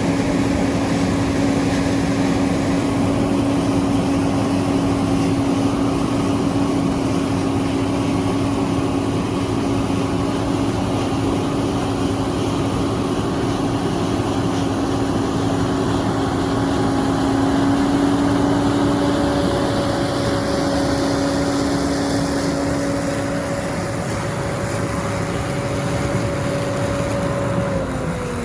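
Farm harvest machinery running steadily under power with a strong, even whine, the pitch sliding down near the end as the machine slows or is throttled back.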